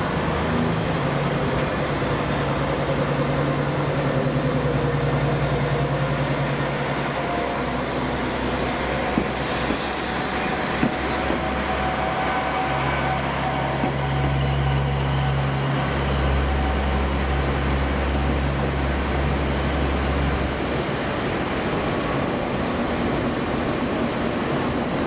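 Diesel engine of a KiHa 47 railcar running under load as the train pulls away and passes close by, a steady low drone that swells twice. Two brief clicks near the middle.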